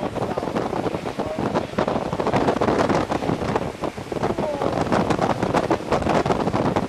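Wind buffeting the microphone of a camera held out of a moving car's window, with road noise underneath.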